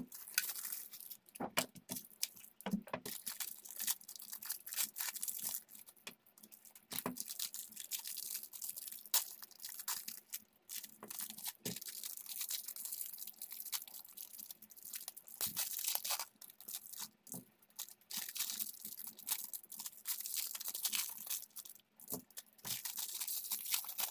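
Thin clear plastic packaging crinkling and tearing in irregular bursts as new electrical switches and a socket are unwrapped by hand.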